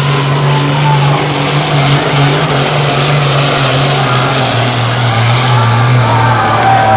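Diesel pulling tractor's engine running hard under full load as it drags the weight sled down the track: a loud, steady low drone that drops slightly in pitch about halfway through.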